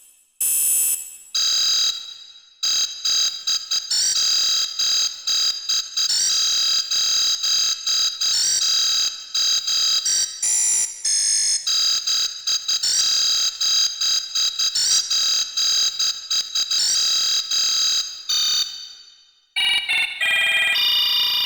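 Piano app on a phone played by someone who can't play piano: many short notes in quick succession, thin and high with no bass. There is a short break near the end, then lower notes start.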